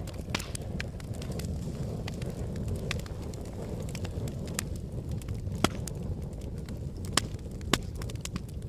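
Wood fire burning with a steady low rumble of flames and scattered sharp crackles and pops from the wood, three of them louder in the second half.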